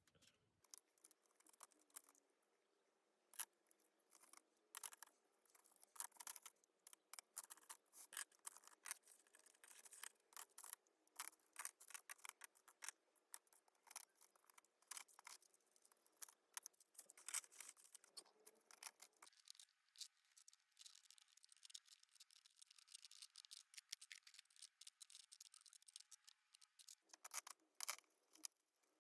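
Faint, irregular clicks and taps of wooden Prismacolor Premier colored pencils being handled and sorted.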